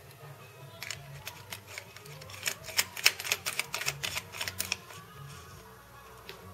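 Rapid, irregular clicking and scraping as a corn-style LED bulb's screw base is twisted into a lamp socket. It starts about a second in and stops after about four seconds.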